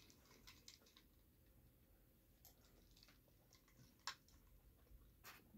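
Near silence with faint chewing and small clicks, then one sharp click about four seconds in as a glass jar of iced soda is set down on the table.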